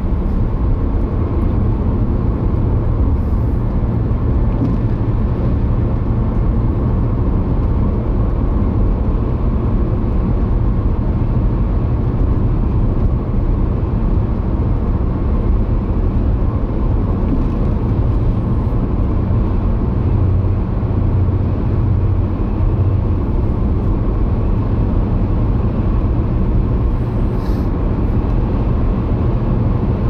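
Steady rumble of tyres and engine heard inside a car's cabin, cruising at about 85 to 95 km/h.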